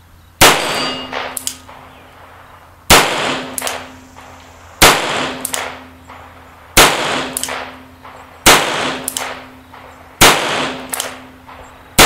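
Nagant M1895 revolver firing 7.62×38mmR Privi Partizan target loads, slow deliberate single shots about every two seconds: six shots, with a seventh right at the end. Each shot is followed by a short metallic ring and a few smaller echoing ticks.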